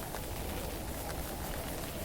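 Steady hiss of fine drizzle and wind, with a few faint taps of footsteps from someone walking.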